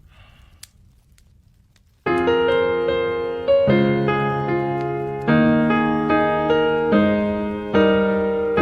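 Piano introduction to a ballad: after about two seconds of faint hiss, sustained chords are struck, a new chord roughly every one and a half seconds.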